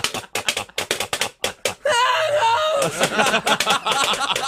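Novelty song about toast playing: a quick run of sharp clicking hits, then about two seconds in a voice comes in with held, sung notes.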